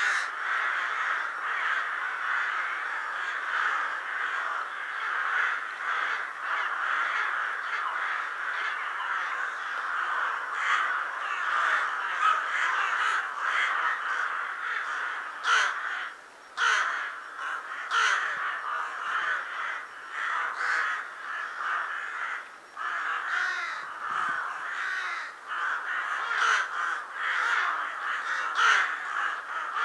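A large flock of rooks cawing continuously, many calls overlapping into a dense chorus with louder single caws standing out. It is a wintering flock gathering at an assembly site shortly before dusk.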